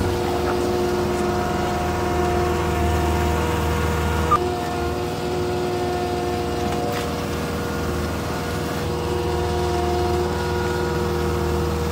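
ASV compact track loader's diesel engine running steadily while the machine digs a drainage cutout in mud with its bucket, with a couple of faint clicks.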